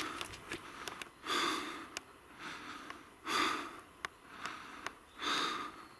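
A person breathing hard, with a loud breath about every two seconds, over light clicks and rustles of footsteps in dry leaf litter.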